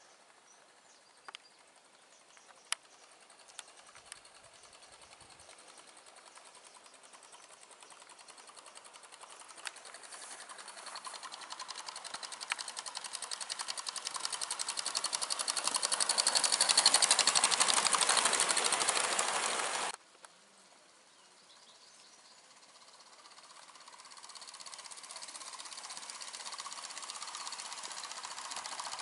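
Gauge 1 model train running along the garden track, making a rapid, even ticking rhythm that grows louder as it approaches and passes close, then cuts off abruptly about two-thirds of the way through. A similar running sound builds again near the end as the train is heard further off.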